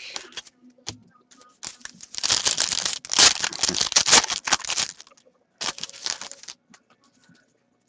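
Foil wrapper of a hockey card pack being torn open and crinkled by hand: a long stretch of crinkling and tearing about two seconds in, then a shorter burst about a second later.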